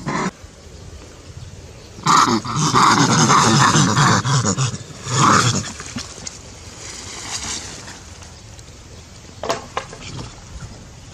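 Macaque cries: a run of loud calls starting about two seconds in and lasting some three seconds, with one more short cry just after; a couple of short sharp sounds near the end.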